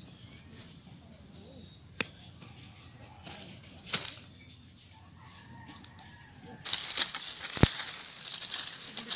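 A couple of faint knocks, then, about two-thirds of the way in, loud close rustling and scraping of dry leaves, vines and crumbly soil as a hand clears earth around sweet potato roots.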